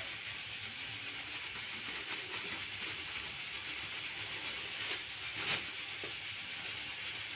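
Maida flour pouring from a plastic bag into a steel bowl, the bag rustling and crinkling in the hand, with a short louder crinkle about five and a half seconds in as the bag is shaken out. A steady faint hiss underlies it.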